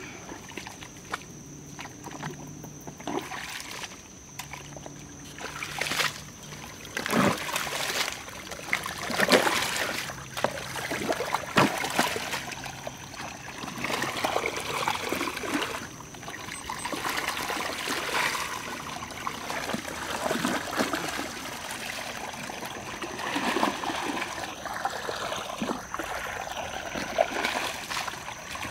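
Shovel chopping and scraping into wet mud and shallow water, with irregular splashes, as a dirt plug is broken to let pond water run down a dug trench; the water trickles and runs more steadily near the end.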